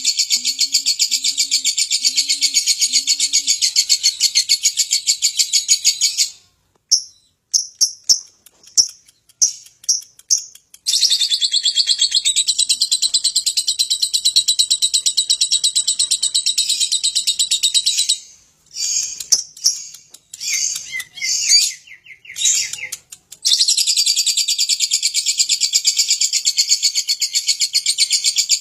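Lovebird in its long 'ngekek' chatter: a fast, high trill held for about six seconds at a time, breaking twice into short choppy bursts before running on again. A few soft, low coos sound under it in the first three seconds.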